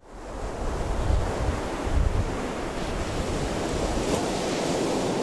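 Sea surf washing on the coast, with wind gusting across the microphone and rumbling about one and two seconds in.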